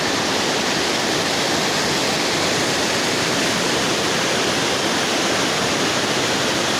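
Rushing water of a fast mountain river, a loud, even, unbroken rush.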